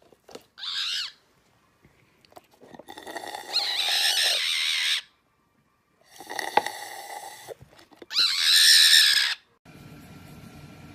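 Parrot giving four harsh, raspy squawks, each lasting from half a second to two seconds, the loudest near the end. A steady low hum follows in the last second.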